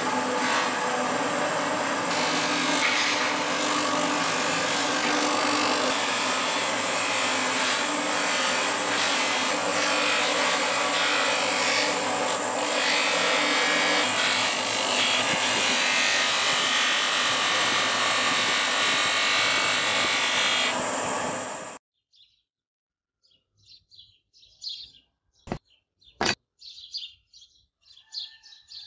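Bench polisher's buffing wheel running steadily with a steel sword blade pressed against it, a loud whirring hiss of the blade being buffed to a mirror finish. It cuts off suddenly about 22 seconds in. After that, birds chirp faintly and there are two sharp clicks about half a second apart.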